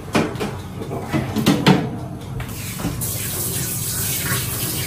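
A few clinks and knocks as a tray is pushed into a countertop toaster oven, then a kitchen tap running steadily into a stainless-steel sink from about three seconds in.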